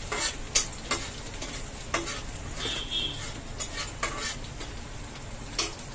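Slotted metal spatula scraping and clicking against a steel kadhai as chopped onions are stirred, over the steady sizzle of the onions frying in hot mustard oil; the onions are almost done. The clicks come irregularly, about seven in all, with a brief high squeak about halfway.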